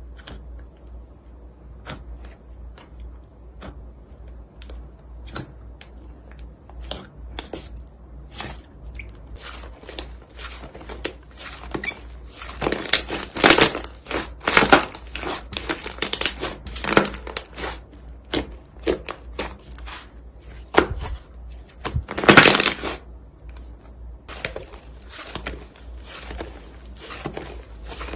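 Slime being squeezed and pressed by hand, making sticky clicks and pops. At first they come one at a time and sparse; from about halfway they thicken into dense crackling runs, loudest near the middle and again a little later.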